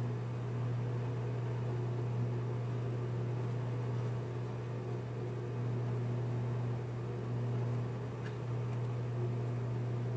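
MaxNC mini-mill spindle motor running with a steady hum while a small bit drills into a metal plate.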